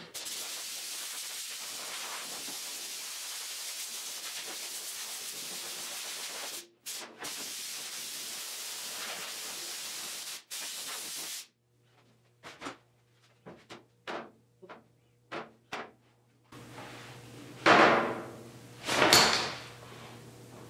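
Paint-stripping disc on a power tool working the painted steel bonnet: a steady hiss, broken off abruptly twice, stopping about eleven seconds in. Then a few light clicks and knocks, and near the end two loud short whooshing bursts.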